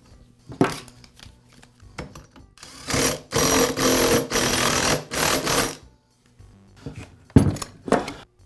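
Cordless impact driver tightening a chainsaw flywheel nut, run in three bursts over about three seconds. Sharp knocks from the tool and saw being handled come before and after, the sharpest about seven seconds in.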